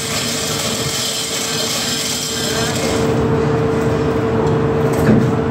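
Steady machinery hum with a constant tone, and a hiss that drops away about three seconds in.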